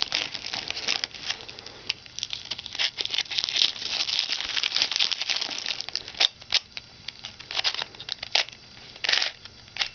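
Thin clear plastic wrapping crinkling and tearing as it is cut with scissors and pulled off a puzzle cube, in irregular crackles throughout.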